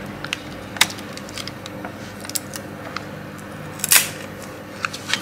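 Small clicks and scrapes of metal tweezers working at a laptop motherboard to unplug the battery connector, with a louder click about four seconds in, over a faint steady hum.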